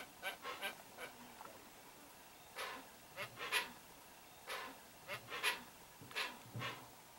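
Hoatzins calling: short, rasping calls in quick runs of two to five, a run every second or two.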